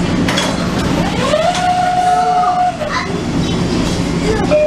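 Commuter train running, heard as a steady low hum with a few knocks. A pitched whine rises about a second in, holds, and dies away a second or so later.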